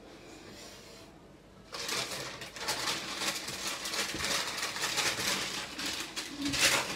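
Brown baking paper being handled and rustled, with a crackly crinkling that starts about two seconds in and keeps going.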